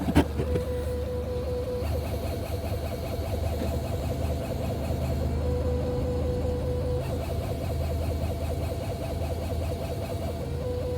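A DS7 Crossback's steady low drone with a thin, high whining tone over it: the strange noise the owner still hears from the car. The whine holds one pitch, steps slightly higher for most of the time, then drops back near the end; a sharp click comes right at the start.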